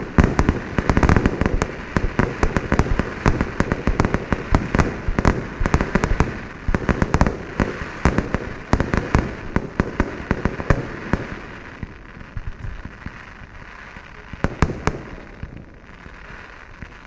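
Fireworks display: a rapid, dense run of bangs for about the first eleven seconds, then thinning to scattered, softer reports, with a couple of sharp bangs a little before the end.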